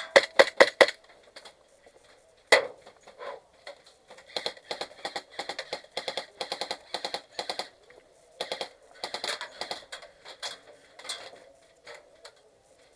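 Airsoft guns firing in rapid bursts, a fast rattle of shots with short gaps between strings, and one louder single crack about two and a half seconds in.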